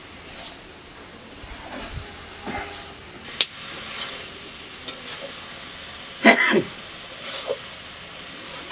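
Food frying in a small metal wok over a wood fire, a steady sizzle with a metal spatula scraping and clinking against the pan as it is stirred. A sharp click comes a little past three seconds and the loudest scrape just past six.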